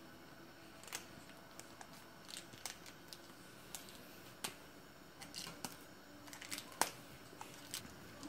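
Small clear plastic toy wrapper crinkling and tearing as it is pulled open by hand: scattered soft crackles and clicks at irregular times, the sharpest about four and a half and seven seconds in.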